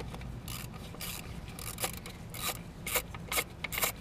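Socket ratchet on a swivel extension clicking in short bursts as it is swung back and forth to work a bolt loose; the bursts come closer together and louder in the second half.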